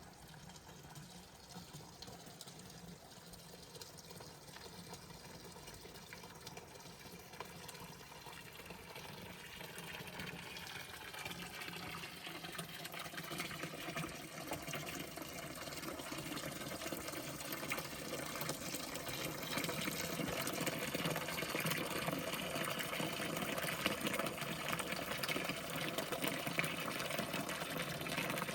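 Rushing water, a steady wash that grows steadily louder throughout.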